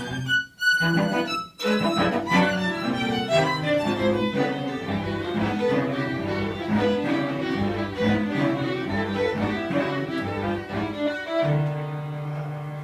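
String quartet playing a busy passage of many short moving notes, with two brief breaks in the sound near the start, settling on a held low chord near the end.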